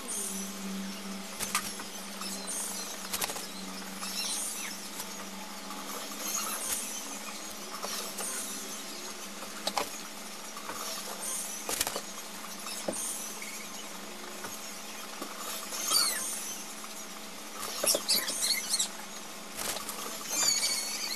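Pencil scratching on paper in short hatching strokes, with scattered small taps and squeaks, over a low steady hum.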